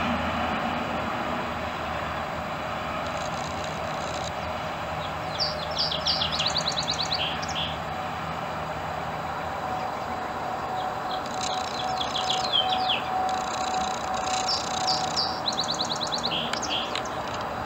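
House finch singing: two bouts of quick, warbling notes a few seconds apart, over a steady low background rumble.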